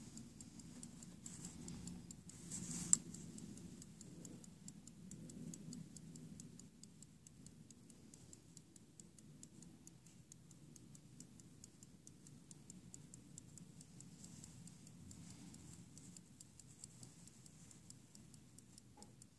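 Antique verge fusee pocket watch running, its verge escapement giving a rapid, even, faint ticking. One louder click sounds about three seconds in.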